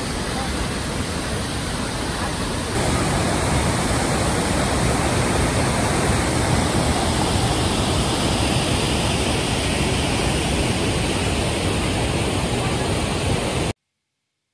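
Steady rushing roar of the Iguaçu Falls, the water's noise spread evenly from deep rumble to high hiss. It gets louder at a cut about three seconds in and cuts off to silence near the end.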